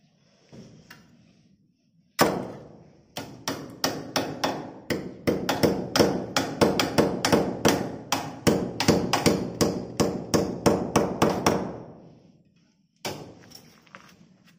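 Steel claw hammer striking a small metal fixing clip and nail at the corner of an aluminium window frame, driving it into the brick wall to anchor the frame. A long run of quick, ringing blows starts about two seconds in and speeds up to three or four a second. It stops near the end, followed by one more short blow.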